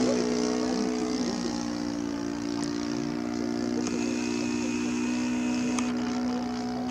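Radio-controlled model P-51 Mustang flying past, its engine and propeller giving a steady drone that slowly fades.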